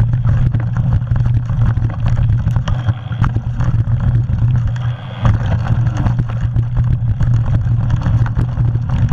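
Wind buffeting the microphone of a camera on a mountain bike riding fast down a dirt trail, a steady low rumble, with the bike's rattles and knocks over the rough ground scattered throughout and a brief lull about five seconds in.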